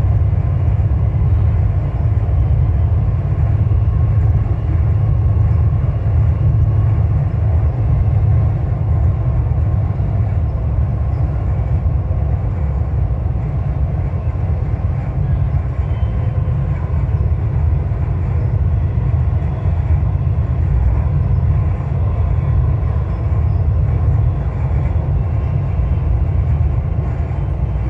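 Dubai Metro train running at speed, heard from inside the front car: a steady, loud low rumble with a faint hum above it.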